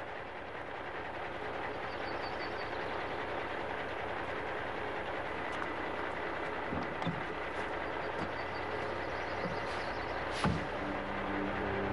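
Steady outdoor rumble with a few short knocks as a man climbs into a red semi-truck's cab; a thud about ten and a half seconds in, then the truck's engine starts and runs with a steady low drone.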